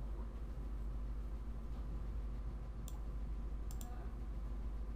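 Computer mouse clicking: one click near three seconds in, then a quick pair of clicks about a second later, over a steady low electrical hum.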